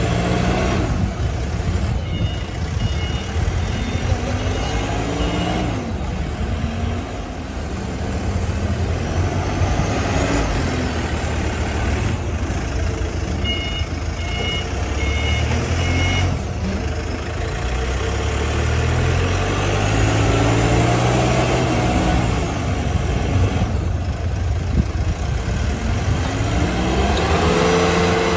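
Four-wheel-drive diesel rough-terrain forklift driving and manoeuvring, its diesel engine revving up and falling back again and again. Its reversing alarm beeps steadily, about two beeps a second, in two spells: a few seconds in, and again around the middle.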